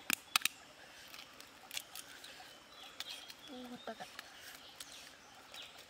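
Cooked duck eggs' shells cracking: a few sharp taps of egg on rock just after the start, then scattered small cracks and crackles as the shells are peeled.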